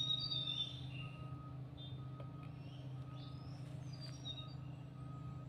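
Forest ambience: faint chirping bird calls with short gliding notes over a steady low hum.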